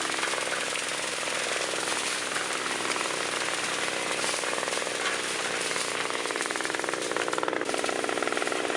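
Fast, steady mechanical rattling of running farm machinery, a rapid even clatter with no pause.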